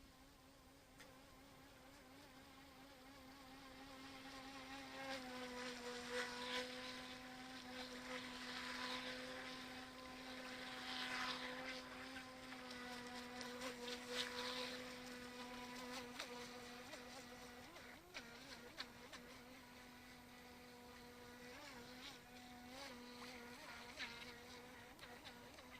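UDI Rapid RC boat's electric motor whining at a steady pitch as the boat runs across the water, with the hiss of the hull through the water. The whine gets louder about five seconds in and eases off again in the second half.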